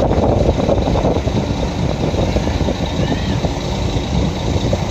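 Steady low rumble of a ferry's engines while the ship is under way.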